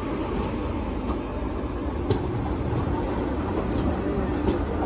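Passenger train running: a steady rumble of the coach moving along the track, with a few light knocks.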